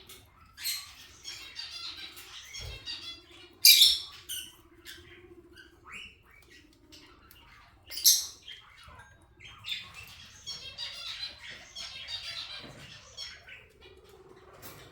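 Kakariki parakeets chattering and squawking, with two loud, sharp squawks about 4 and 8 seconds in.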